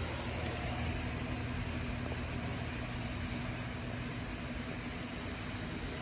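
Steady low machine hum with an even hiss over it, like a running fan or other appliance in the room, with a faint tick about half a second in.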